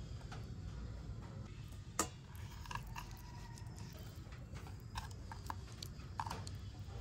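Scattered light clicks and taps, with one sharper knock about two seconds in and a small cluster of clicks near the end, over a low steady rumble.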